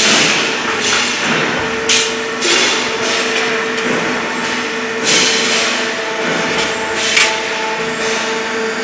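Leaf spring production-line machinery running: a steady hum under dense clattering noise, broken a few times by sharp metallic knocks and short hissing bursts.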